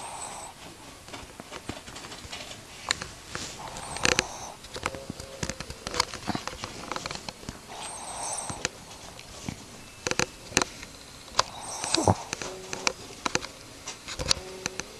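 Shih tzu snoring, one noisy breath about every four seconds, with scattered sharp clicks and snuffles between the breaths.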